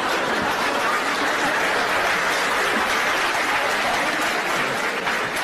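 Audience applauding steadily in a hall, sustained clapping in reaction to a joke.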